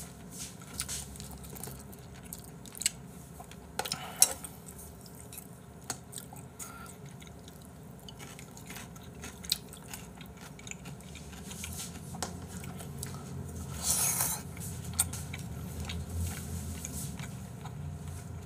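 A person chewing and eating braised chicken and rice close to the microphone, with sharp clicks of chopsticks and spoon against bowls, the loudest a few around four seconds in. About fourteen seconds in there is a short louder rustling noise while more stew is ladled from a takeout container into the bowl.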